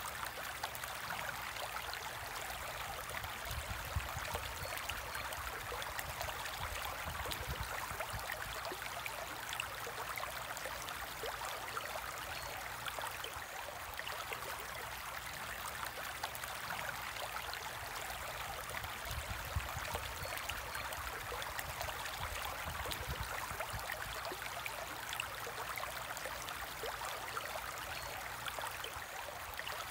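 Water in a home aquarium trickling and bubbling steadily, with many small pops and an uneven low rumble underneath.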